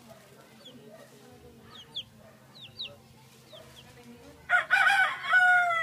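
A chick peeping in short, high, falling notes, then, about four and a half seconds in, a loud rooster crow lasting over a second that falls in pitch at its end.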